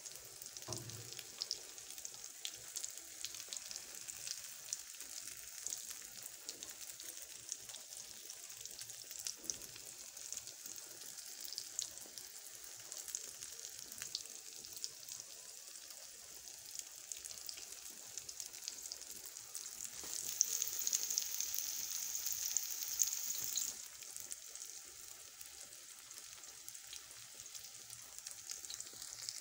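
Egg mixture with chopped tomato, onion, green pepper and coriander frying in hot oil in a pan: a steady sizzle full of fine crackles. The sizzle grows louder for about three seconds two-thirds of the way through, then settles back.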